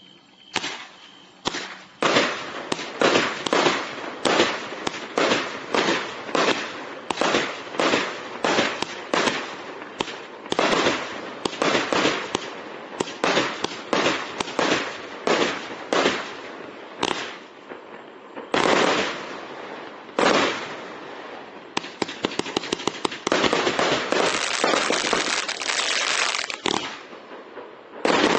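Kung Fu Master firework barrage cake firing: a steady run of shots with bursting breaks, about two a second, then a few heavier, more spaced-out breaks. A few seconds of dense rapid crackling follow, and the shots resume near the end.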